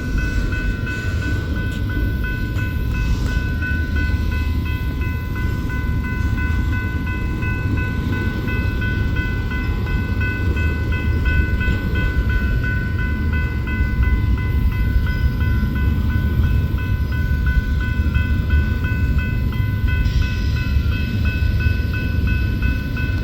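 A train passing close by: a steady low rumble of the cars on the rails with a constant high whine over it.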